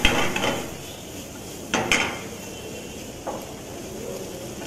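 A wooden spatula scraping and knocking against a nonstick frying pan while stirring peas and onions. There are three strokes: one at the start, a sharper one just before two seconds in, and a softer one after three seconds.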